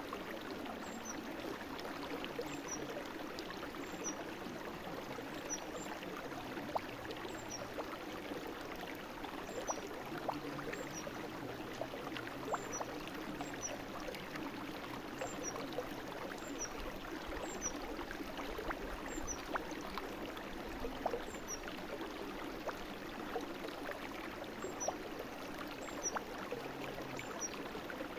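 Brook water flowing and trickling steadily over stones, with many small plinks and gurgles in the rushing. Faint, short high chirps repeat about once a second.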